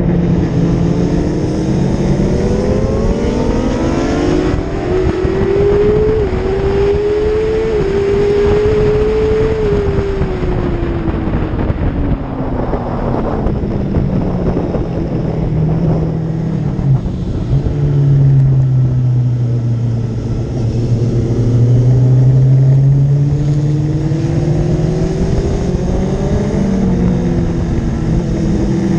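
Motorcycle engine heard from on board at speed: it revs up through several quick gear changes, winds down through the gears midway, runs low and steady for a few seconds, then pulls up again near the end. Wind rushes over the microphone.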